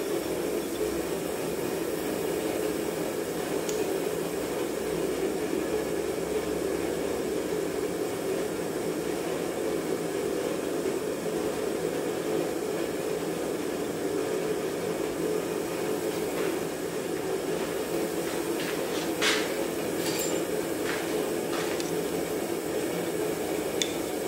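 Light metallic clinks of steel laid and shifted on an anvil face: one about four seconds in, then a few close together near the end. They sit over a steady low rushing background noise.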